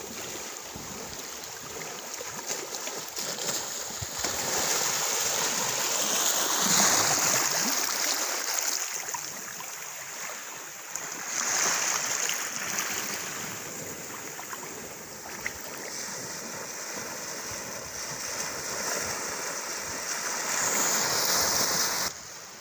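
Small sea waves washing up on a sand and pebble beach, a steady hiss that swells louder several times as the waves come in.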